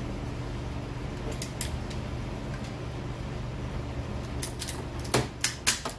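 Sharp plastic clicks from nylon cable ties being fastened around wiring and snapped off, a couple about a second and a half in and three louder snaps close together near the end, over a steady low hum.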